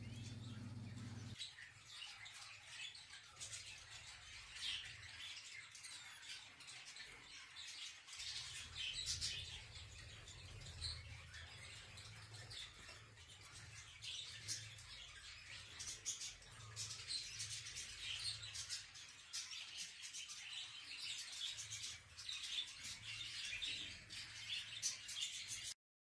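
Caged canaries and finches chirping and twittering in quick, irregular short calls, over a faint low hum.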